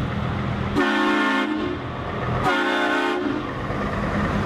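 A Scania cement mixer truck sounds its air horn twice, two blasts of a few notes at once, each under a second long, over its diesel engine running steadily as it drives past.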